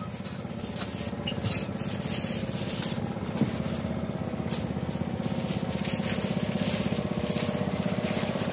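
Small wooden boat's longtail engine running steadily with a fast, even putter, growing louder as the boat approaches.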